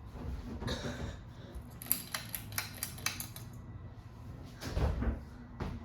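Mainstays ceiling fan running on its medium speed with a low, steady motor hum. A run of light metallic clicks and rattles, the pull chain swinging against the fan's switch housing after being pulled, comes in the first half, and there is a dull thump near the end.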